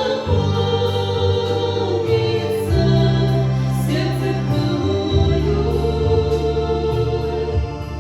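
A Christian hymn sung by voices over organ accompaniment, with long held organ chords and a bass line that changes every second or two.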